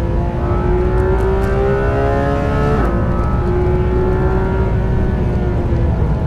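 Porsche 911 GT3 RS's naturally aspirated 4.0-litre flat-six at high revs under hard acceleration. The engine note climbs, drops sharply about three seconds in, and climbs again, with another drop near the end.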